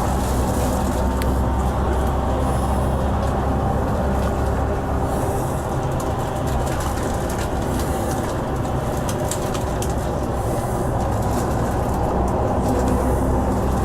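Tour bus running on the road, heard from inside: a steady low engine drone with road noise and light rattles.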